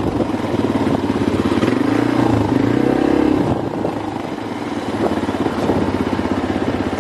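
ATV engine running under way, with a fast, even pulsing; its pitch rises and falls a little about two to three seconds in.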